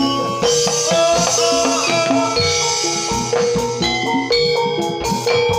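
Javanese gamelan music accompanying a jathilan dance: bronze metallophones ringing out held notes over steady drum strokes.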